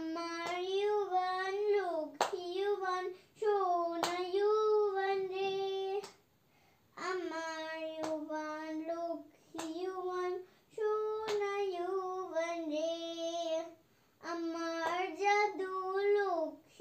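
A child singing unaccompanied in long, held, wavering notes, phrase after phrase with short pauses for breath. A few sharp clicks sound over the singing.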